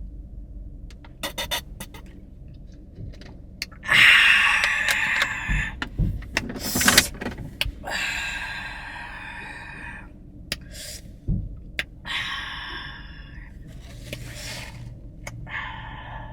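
Exaggerated, deliberately loud eating noises: open-mouthed smacking and slurping in a string of irregular bursts, loudest a few seconds in.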